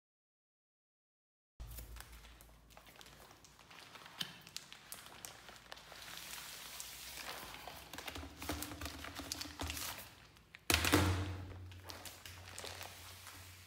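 Plastic garbage bag full of old slime crinkling and rustling, with light taps, as a plastic laundry basket is worked off it. Silent for the first second and a half, then a single heavy thump about three-quarters of the way through.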